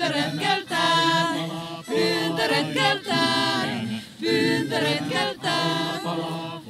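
A small group of voices singing a cappella, in short phrases about a second long with brief breaks between them.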